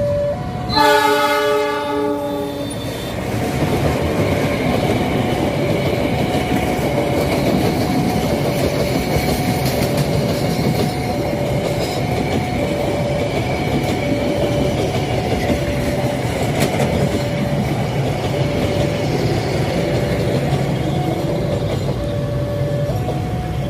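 Locomotive of the Ranggajati passenger train sounding its melodious multi-note chord horn once, about a second in, for about two seconds. The train then runs past with a steady rumble of wheels on the rails. Under it all a two-note tone alternates steadily.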